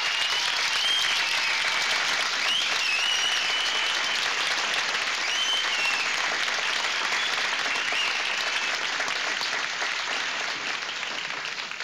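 Banquet audience applauding steadily as a speaker is welcomed to the microphone. Several times a high, wavering tone rises and falls above the clapping, and the applause thins a little near the end.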